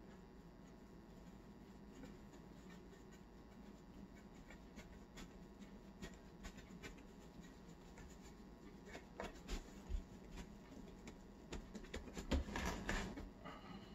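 Hands rolling and pressing bread dough on a floured wooden board: faint rubbing with scattered soft taps and pats, busier and loudest near the end.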